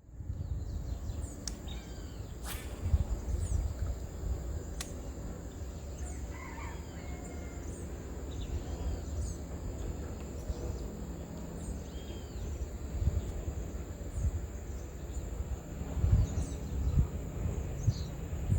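Mangrove ambience: a steady high insect drone with short high chirps repeating about every second, over a low rumble that grows louder near the end. A couple of sharp clicks stand out early on.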